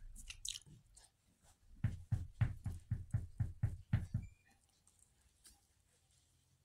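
A man puffing rapidly on a lit cigar: a quick run of short lip puffs, about four a second, starting about two seconds in and stopping a little after four seconds.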